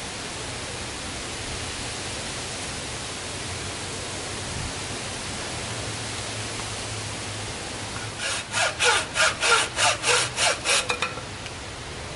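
Homemade takedown buck saw cutting through a wooden stick: about a dozen quick back-and-forth strokes, starting about eight seconds in and coming faster near the end.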